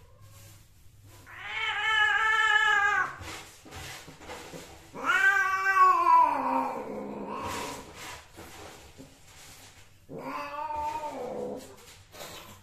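Longhaired female cat yowling three times, long drawn-out caterwauls, while a male mates with her. The second yowl is the loudest and drops in pitch as it ends.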